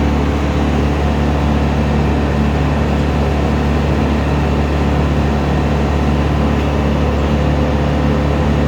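Heavy engine of tree-work equipment running steadily at a constant speed, a low even drone that does not rise or fall.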